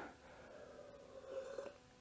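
Near silence: quiet room tone, with a faint, brief sound about a second and a half in.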